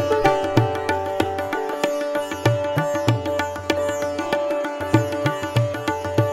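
Sitar played in quick plucked strokes over its ringing drone strings, with tabla accompanying in deep, repeated bass strokes.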